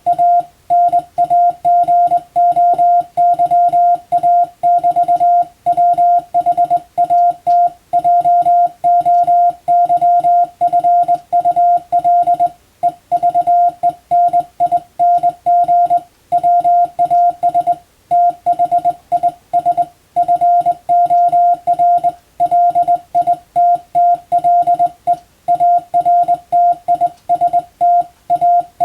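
Morse code (CW) tone: a single steady pitch keyed on and off in dots and dashes at a brisk sending speed, with longer pauses between words.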